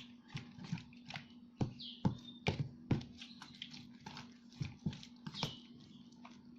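Sticky, clumping slime being stirred in a bowl: irregular wet squelches and clicks, with a couple of brief squeaks.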